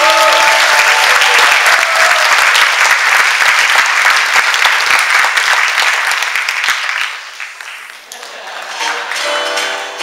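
Audience applauding, clapping at full strength for about seven seconds and then dying away. Music starts up again near the end.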